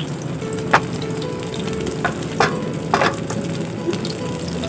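Battered small shrimp sizzling as they fry in hot oil in a pan, with a few sharp clicks of a utensil against the pan as they are stirred.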